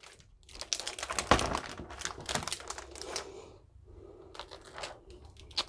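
Hard plastic graded comic book slab cases being handled and swapped: a run of quick plastic clicks and clacks, busiest in the first three seconds and sparser after.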